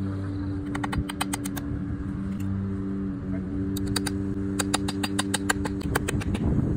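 Hammer tapping nails into the wooden bracket on top of a mailbox post in quick runs of light strikes: one short run about a second in and a longer one from about four seconds in, over a steady low hum.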